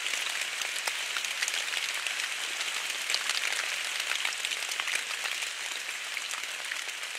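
Rain falling on dead leaves of the forest floor: a steady patter of many small drop ticks over an even hiss.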